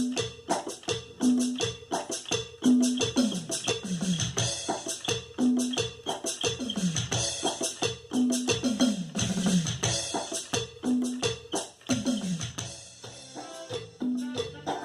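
Sample pad played as a cumbia grupera groove with Roland SPD-20 percussion sounds: quick hand-percussion hits and a scraped shaker rhythm over a kick, with electronic toms sliding down in pitch in fills.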